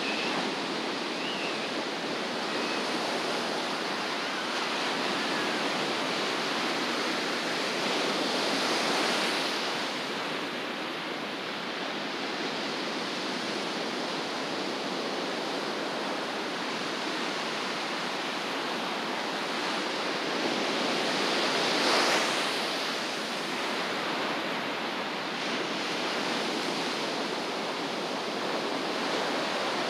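Ocean surf breaking and washing up the beach: a steady rush, with a wave breaking louder about 8 seconds in and a bigger one about 22 seconds in.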